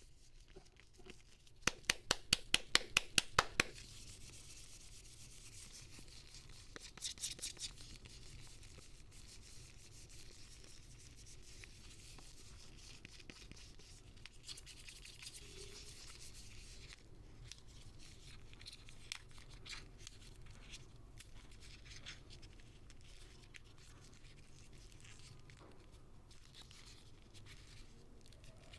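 Handmade soap bars being unwrapped by hand: packaging rubbed, scratched and torn open. A quick run of about a dozen sharp clicks comes about two seconds in, a shorter run around seven seconds in, then quiet steady rustling and scratching.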